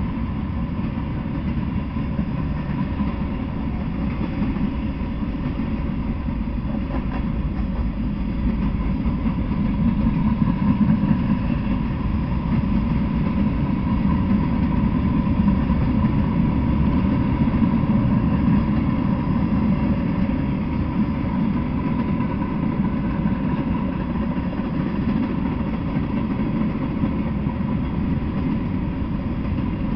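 Freight train rolling past: the steady rumble of boxcars, gondolas and covered hoppers on the rails, a little louder in the middle.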